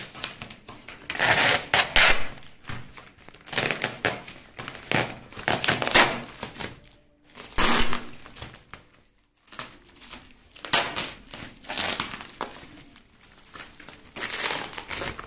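Plastic bubble wrap being unwrapped from a packed parcel, crinkling and rustling in irregular handling bursts with short pauses.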